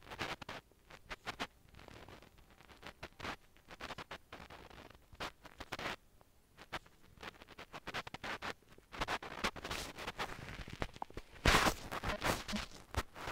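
Fingertips swiping and tapping on a smartphone touchscreen, picked up close by the phone's own microphone: irregular scratchy rubs and small clicks, with a louder burst near the end.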